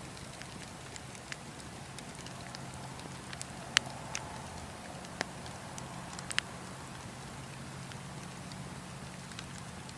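Fire burning with a steady hiss and irregular crackles, with a few louder pops and snaps in the middle.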